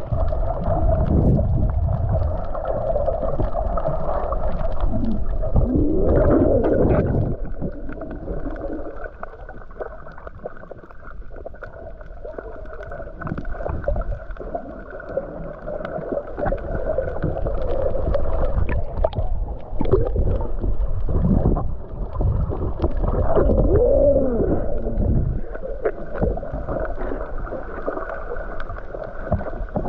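Muffled water sloshing and gurgling, with deep rumbles that ease off about eight seconds in and build again later.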